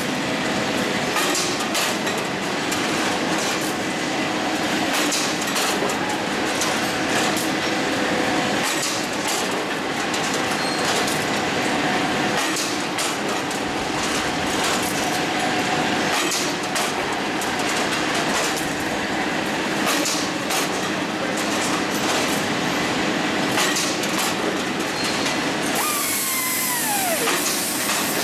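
Cold-rolled ribbed steel bar production line running: a continuous metallic clatter with frequent short clanks of steel bars and machinery. A short falling whine comes near the end.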